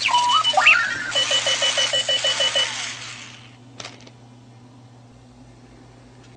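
Clocky runaway alarm clock sounding its alarm: electronic chirps and beeps that glide up and down, then a rapid beeping, stopping about three seconds in. A single click follows about a second later.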